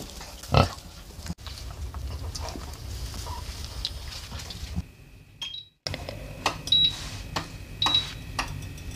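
A pig grunts once about half a second in, amid scattered clicks and shuffling from a sow and her newborn piglets in straw. Later come a few clicks and two short high beeps from an induction hob's touch controls.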